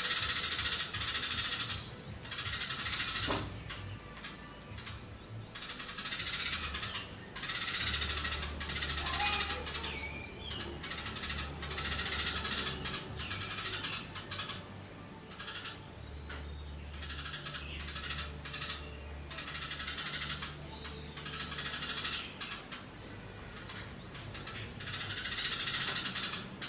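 Eurasian tree sparrow singing long rapid-fire chattering phrases, each a second or two of fast, dry clicking notes, repeated with short pauses between them.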